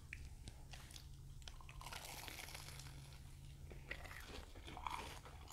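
Faint crunching and chewing as two people bite into Korean corn dogs, the deep-fried batter super crunchy.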